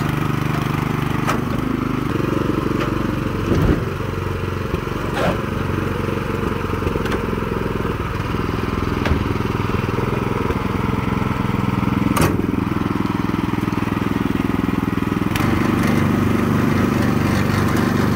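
Small gas engine of a tracked power wheelbarrow running steadily, with several sharp knocks of cut wood pieces landing.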